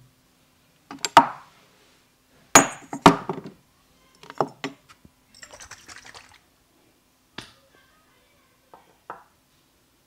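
A series of sharp knocks and clinks at irregular intervals, the loudest a few close together about a second and three seconds in, with a short rustling hiss a little past the middle.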